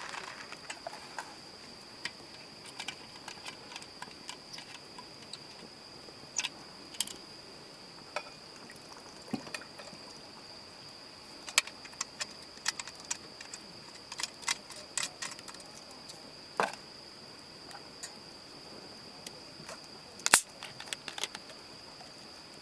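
Insects trilling steadily on one high note, with scattered sharp clicks and knocks over it; the loudest knock comes near the end.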